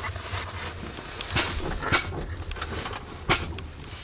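A few sharp knocks and clicks, three in all, over a low steady hum.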